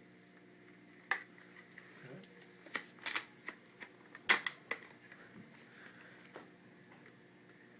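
Irregular sharp mechanical clicks and clacks from a CO2 airsoft rifle being handled and readied to fire, about a dozen in all, the loudest cluster about four seconds in.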